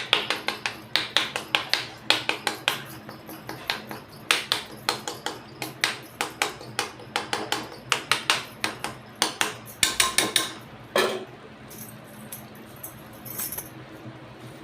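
A metal spoon clinking rapidly against a pan while stirring a tomato gravy, a quick run of sharp knocks that stops about three-quarters of the way through.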